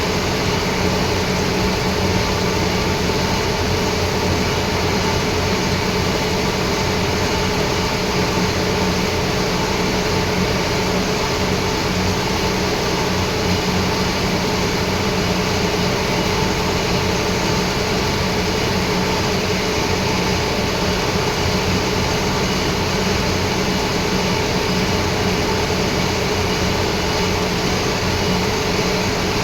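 Lathe running steadily in a machine shop: a constant mechanical hum with several steady tones over a noisy whirr, unchanging throughout.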